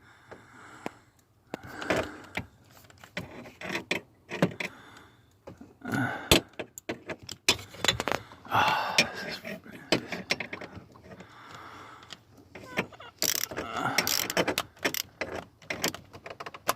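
Ratchet, extension and socket clicking and clanking in irregular bursts against metal as they are worked up onto a hard-to-reach bolt, with short scrapes and rattles between the clicks.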